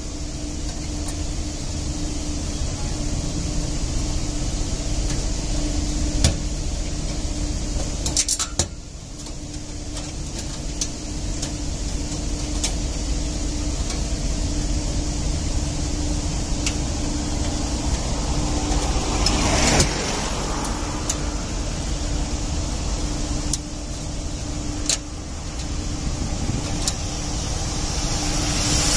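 Steady machine drone, like an engine running, with a constant low hum throughout. Scattered sharp metal clicks and light knocks come from handling the air-filter housing and its cover clamps.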